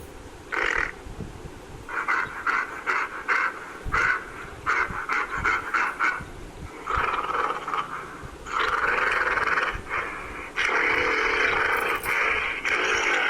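A gorilla vocalising: short breathy grunts in quick runs of about four a second, then two longer, drawn-out calls starting about nine and eleven seconds in.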